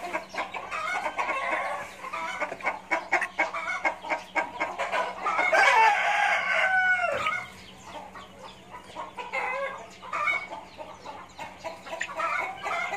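Young chickens clucking and calling in quick short notes, with one longer, louder call about six seconds in that falls in pitch.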